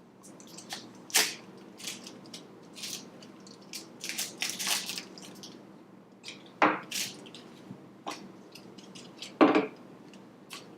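Mystery-toy packaging being handled and pried open by hand: irregular crinkles, clicks and snaps, with a few sharper snaps standing out.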